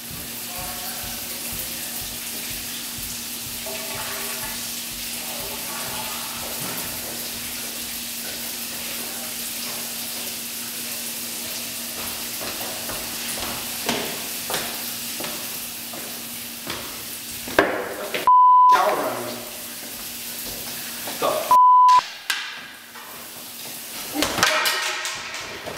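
Shower water running in a steady hiss over a low hum, which stops after about 17 seconds. Then speech, broken by two short high bleep tones about three seconds apart.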